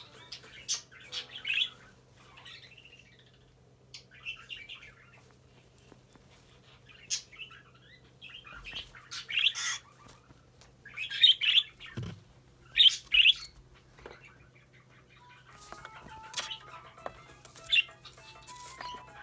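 Yellow-sided green-cheeked conure giving short, scattered chirps and rustling its feathers, with the loudest cluster about eleven to thirteen seconds in.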